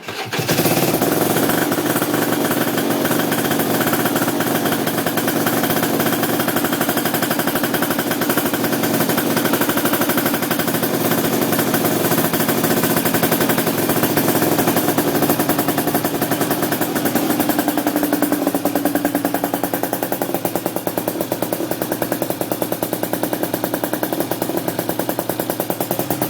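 Aprilia RS125's 125 cc single-cylinder two-stroke engine catching and then idling with a rapid, even popping beat, its note shifting slightly about two-thirds of the way through.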